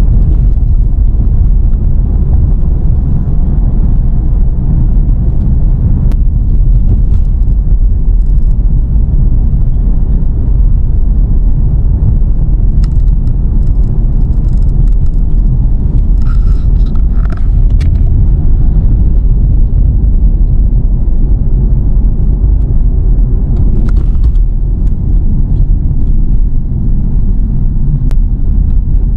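A car driving along: a steady, loud, low rumble of engine and road noise.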